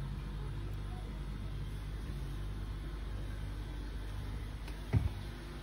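Steady low hum of a running freezer, with a single sharp knock about five seconds in.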